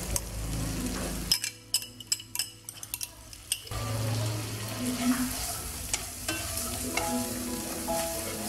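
Squid sate sauce sizzling in a nonstick frying pan, with a run of sharp clicks for a couple of seconds near the start. Toward the end a wooden spatula stirs the sauce through the pan.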